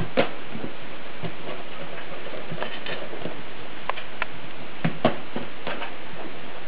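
Soft, irregular taps and pats of hands pressing balls of dough flat into rounds on a floured wooden board, over a steady hiss.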